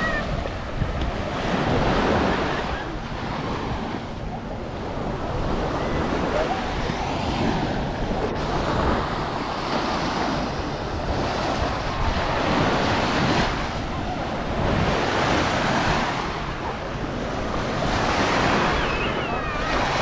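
Small waves washing up on a sandy beach and drawing back, the wash swelling and fading every two to three seconds.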